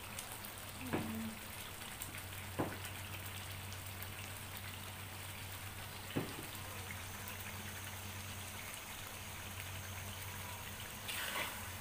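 Chili-sauce paste sizzling steadily in oil in a wok, with three sharp pops. It is being cooked until the oil separates and rises to the top (pecah minyak).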